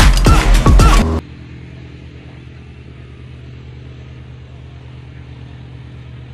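Loud electronic music with a steady beat that cuts off abruptly about a second in. It gives way to a steady, low drone of a light aircraft engine running on the airfield.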